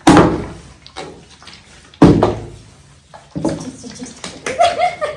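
A plastic bottle with water in it thuds down on a rug twice, about two seconds apart, the water sloshing inside after each landing.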